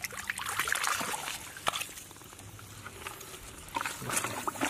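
Hands working through shallow muddy pond water, sloshing and splashing, with scattered short splashes and crackles. It is busier in the first second and again near the end, quieter in the middle.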